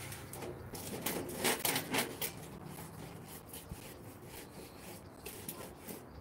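A quick run of rustling and sharp clicks, loudest a second or so in and lasting about a second, then a few scattered softer clicks.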